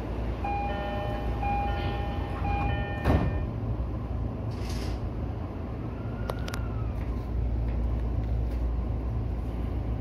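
JR E231-series electric train running, a steady low rumble heard from the driver's cab. In the first few seconds an electronic beeping tone sounds three times, then a single sharp clank about three seconds in, which is the loudest sound; a short hiss follows near five seconds in, and a few light clicks come a little later.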